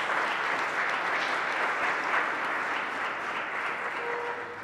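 Audience applauding, dying down toward the end, with a faint steady tone coming in near the end.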